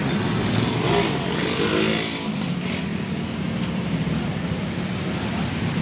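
A motor vehicle engine running steadily close by, amid street traffic, with a brief rise in engine pitch between about one and two seconds in.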